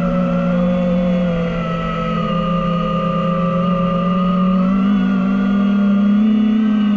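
DJI FPV drone's motors and propellers whining steadily, the pitch sagging a little about two seconds in and rising again near five seconds as the throttle changes.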